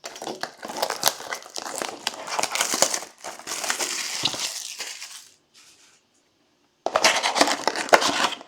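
Plastic wrapping on a trading-card box crinkling and crackling as it is handled and torn open, in two bouts with a pause of about a second and a half between.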